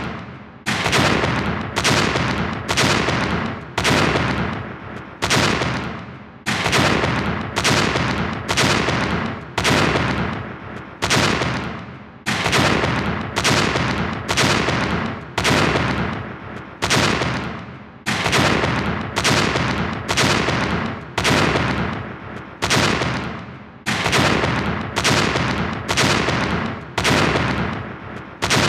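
A short explosion sound effect played again and again, a little more than one blast a second, each sudden bang fading and then cut off by the next.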